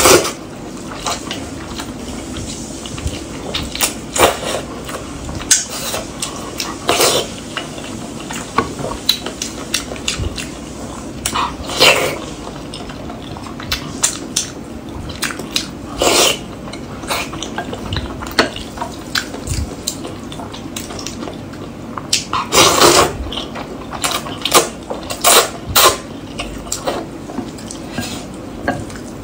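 Close-miked eating of hot and sour glass noodles: repeated wet slurps of noodles and broth every few seconds, the loudest about twelve seconds in and again past twenty-two seconds. Between them, a wooden spoon and chopsticks click against a ceramic bowl.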